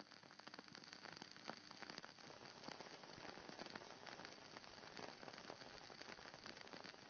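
Faint, steady crackling hiss made of many tiny irregular clicks.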